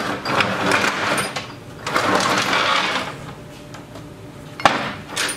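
Tracked snowblower drive chassis being turned around on a diamond-plate steel workbench: two spells of scraping and rattling as its rubber tracks and steel housing drag across the metal top. A single sharp clank comes near the end.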